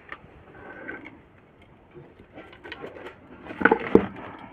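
Small clicks, rattles and knocks of hands working on an electric cooking heater, turning its clay-lined body and fitting a nut onto the heating-coil terminal screw; the loudest cluster of knocks comes near the end.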